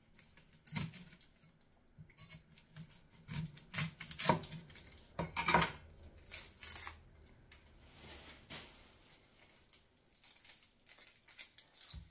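Kitchen knife working an onion on a cutting board: irregular knocks of the blade on the board and scrapes, a few louder ones around the middle.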